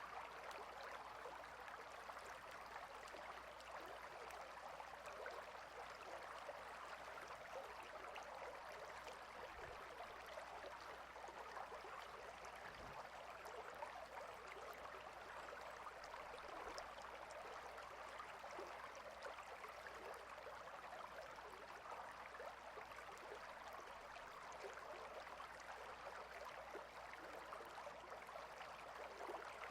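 River water flowing: a steady, even rush with a fine flickering texture.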